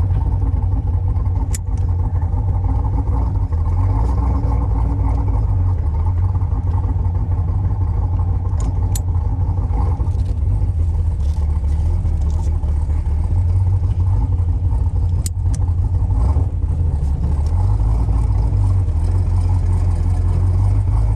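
The V8 engine of a 1966 Corvette running steadily while the car is driven, heard from inside as a deep, low, continuous engine sound. A few faint clicks come through on top of it.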